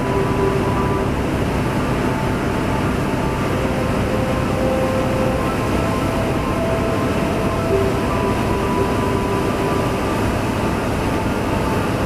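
Deutz-Fahr combine harvester and Valtra tractor running side by side as the combine unloads grain through its auger into the trailer: a steady drone of engines and machinery, with faint whining tones that come and go.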